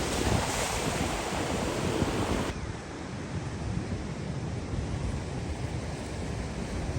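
Ocean surf breaking and washing up a sandy beach, with wind buffeting the microphone. About two and a half seconds in, the hiss of the surf suddenly drops to a softer wash.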